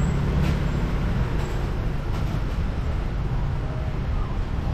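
Steady low rumble of street traffic, with motor scooters.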